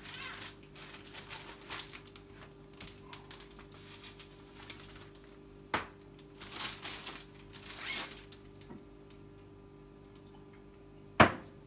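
Kitchen handling noises: a plastic zip-top bag of seasoned cornmeal rustling in short bursts, with scattered light clicks over a faint steady hum. A single sharp knock comes about halfway through, and a louder one near the end.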